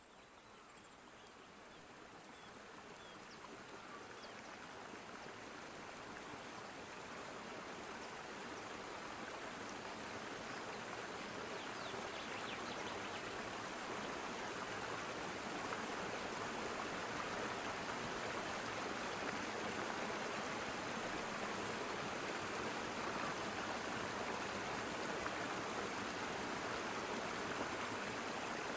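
Steady rushing noise that fades in gradually over the first dozen seconds and then holds even, with a faint high steady tone above it.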